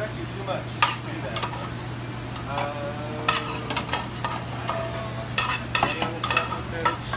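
Restaurant kitchen during plating: scattered clinks and clatter of utensils against plates and steel counters, over a steady low hum.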